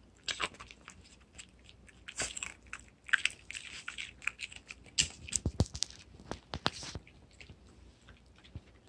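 Shih Tzu crunching and chewing a piece of raw broccoli: a run of irregular crisp crunches, loudest a little past the middle, then tapering off near the end.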